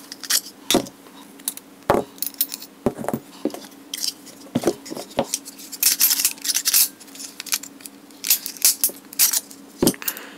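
Handguns being taken apart by hand: irregular sharp metal clicks and clacks as slides, barrels and recoil springs come off the frames and are set down.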